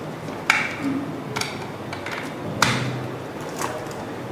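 Hard objects being handled during an unboxing: four sharp clicks and knocks, the loudest about half a second in and again past the middle.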